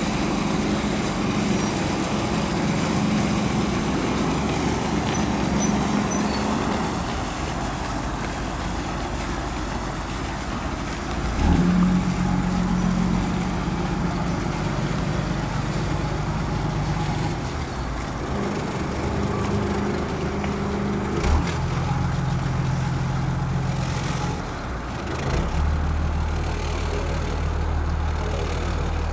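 Yakatabune houseboat's engine running at low speed while the boat comes in to the pier, its low note shifting up and down several times as it manoeuvres. Two short knocks stand out, one about a third of the way in and another about two-thirds in.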